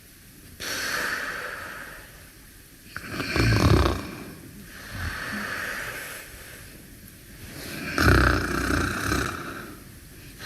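A sleeper snoring in slow, even cycles about five seconds apart: an airy breath, then a loud, rough snore, heard twice.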